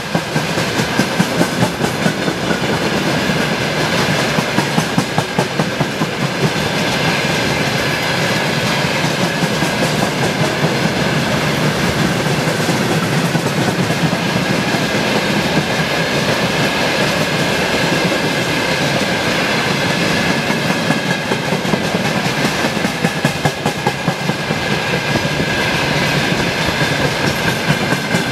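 Long freight train of rail tank cars rolling past close by: a steady rumble of steel wheels on rail, with runs of clickety-clack as the wheelsets cross rail joints, most marked near the start and near the end. A steady high ringing tone runs through it.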